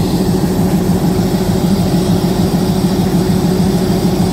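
A passenger train's heavy engine idling with a steady low hum.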